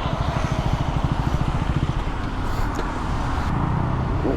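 Road traffic, with a motor vehicle's engine running close by in a low, steady pulse.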